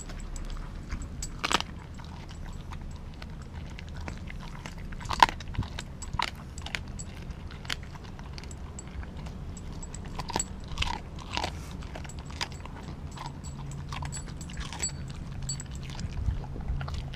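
Kelpie–German Shepherd cross dog chewing and crunching raw meat, with irregular sharp crunches and clicks of the teeth. The loudest crunch comes about five seconds in.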